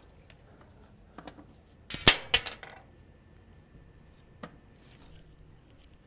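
A few sharp clicks and knocks of a washing machine's power plug being handled against a portable power station's plastic case. The loudest is a quick cluster of two or three knocks about two seconds in.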